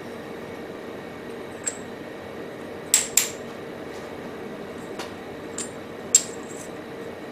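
Small metal parts clicking and clinking as they are handled and set down, about six sharp clicks with the loudest two close together about three seconds in. A steady machine hum runs underneath.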